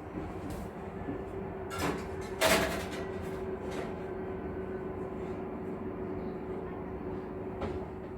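Metal baking tray clattering into an oven and the oven door knocking shut, two loud clanks about two seconds in with a brief metallic ring, then a fainter knock. A steady hum from the running fan oven underlies it.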